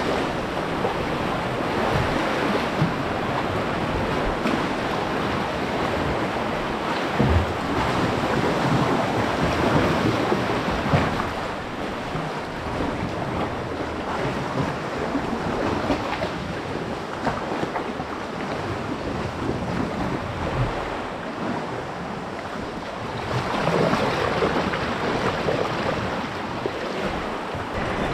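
Sea swell washing and breaking against chalk cliffs and rocks around a paddled sea kayak, with water splashing and wind buffeting the microphone. The surf swells louder near the end.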